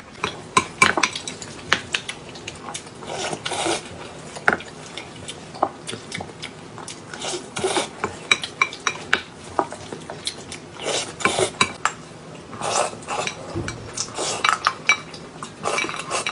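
Spoons clinking and scraping against bowls while rice is stirred and eaten: irregular sharp clicks mixed with short scrapes.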